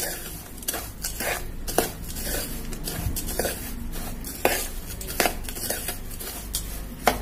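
A steel spoon stirring and scraping crushed biscuit crumbs mixed with melted butter on a plate, with irregular clinks of the spoon against the plate.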